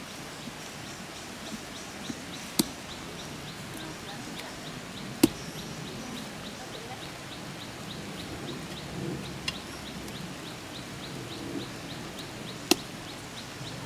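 Three sharp snaps a few seconds apart, the middle one the loudest, over a quiet outdoor background. A faint high ticking, several ticks a second, runs for a few seconds in the middle.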